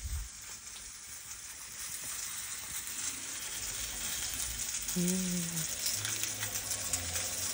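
Whole trout frying on a hot flat metal griddle: a steady sizzling hiss with fine crackles that grows slowly louder. A short voice sound is heard about five seconds in.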